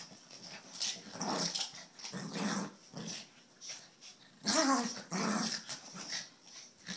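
Two dogs play-growling at each other in short, irregular bursts, the loudest stretch about two-thirds of the way through.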